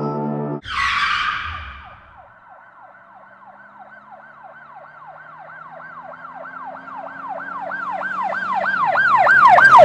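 Music cuts off with a sudden noisy burst. Then a yelp-style emergency siren wails rapidly, about four rising-and-falling cycles a second, growing steadily louder as it approaches.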